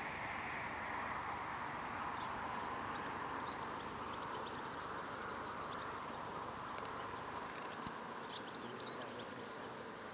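Outdoor riverbank ambience: a steady hazy hum that slowly sinks in pitch, with short high bird chirps scattered through it, more of them near the end.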